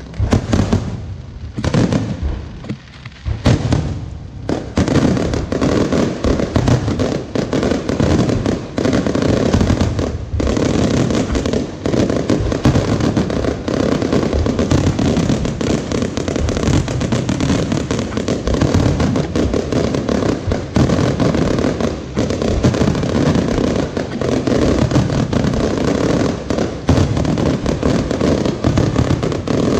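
Fireworks going off in a rapid barrage of bangs and crackling. There are separate bursts for the first few seconds, then a dense, continuous volley from about four seconds in.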